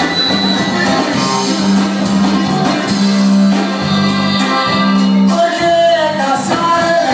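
Loud Latin dance music with a steady bass line; a singing voice comes in about five and a half seconds in.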